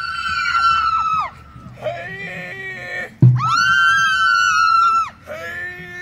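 A female vocalist sings two long, very high held notes, each trailing off in a falling slide. Between them come shorter, lower sung phrases.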